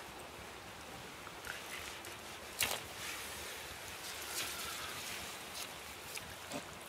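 Rustling and shuffling in damp leaf litter as a caught eel is handled on the ground and the people stand up, with one sharp knock about two and a half seconds in, over the steady rush of a river.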